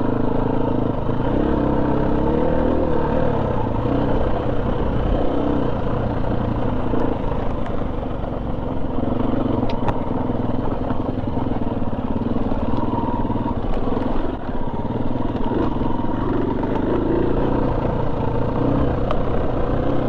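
KTM 250 EXC-F dirt bike's single-cylinder four-stroke engine running at low revs, its pitch rising and falling a little as the bike is ridden slowly.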